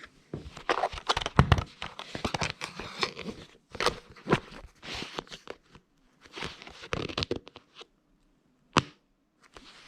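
Commodore SR36 calculator keys pressed in quick irregular flurries of plastic clicks, mixed with rubbing and rattling from the calculator being handled. The flurries stop about eight seconds in, and a single sharp click follows shortly after.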